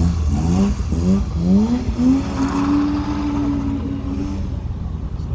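Car engine revved in four or five quick rising blips, then held at high revs for about two seconds before it drops away.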